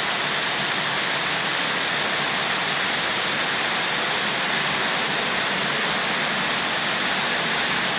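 Storm rain falling steadily, an even unbroken hiss.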